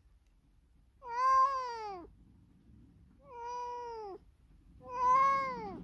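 Domestic cat meowing three times, each call about a second long and arching up then down in pitch. The cat seems to be in a very bad mood.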